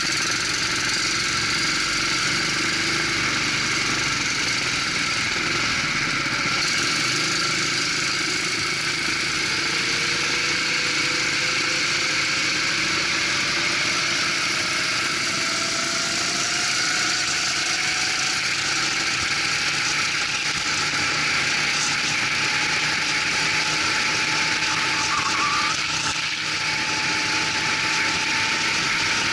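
Go-kart engine running under acceleration from a near stop, its pitch climbing slowly and steadily through the second two-thirds as the kart gains speed, over a constant rushing noise.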